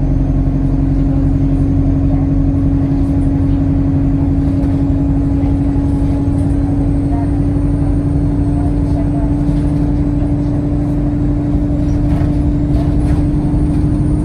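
Alexander Dennis Enviro200 bus's diesel engine running at a steady pace: an even low drone with one strong held tone that creeps slightly higher. Over it sits a faint, very high turbocharger whistle, rising near the end.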